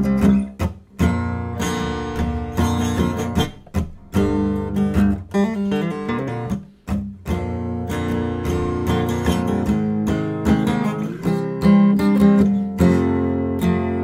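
Solo acoustic guitar playing an instrumental tune, plucked notes and chords, with a few short breaks between phrases.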